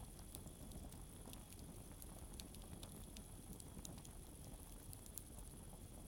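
Faint wood campfire burning, with scattered small crackles and pops over a low rush of flame. A steady high chirring of crickets runs underneath.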